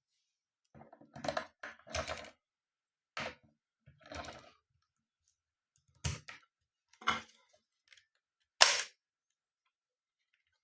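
Small clicks and clatters from handling a Canon AF35M film camera and its AA batteries: about eight separate short clicks, the sharpest near the end.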